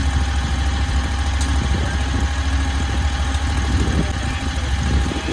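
AGT LRT23 mini stand-on skid steer's 739cc engine idling steadily, with a single sharp click about a second and a half in. The low rumble drops away near the end.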